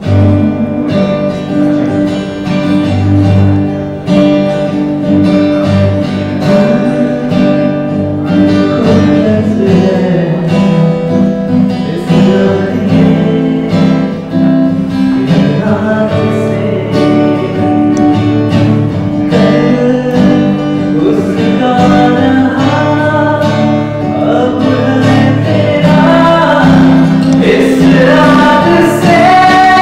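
Live acoustic guitar strumming chords while men sing a song into microphones, the singing growing stronger through the second half.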